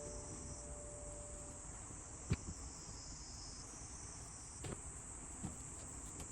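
Insects, cricket-like, chirring steadily at a high pitch, with three soft knocks.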